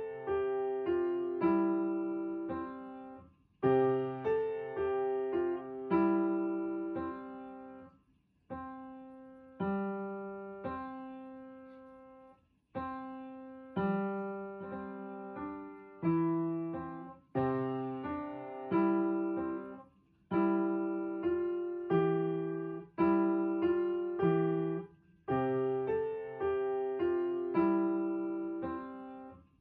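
Background piano music: a gentle melody of struck notes and chords, each ringing and fading, in phrases with short pauses between them.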